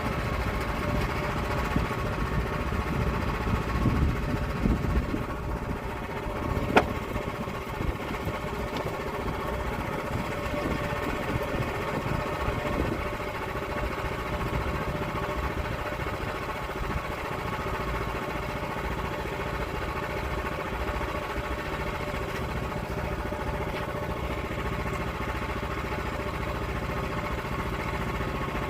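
A portable log mill's engine running steadily while milling an oak log, with one sharp click about seven seconds in.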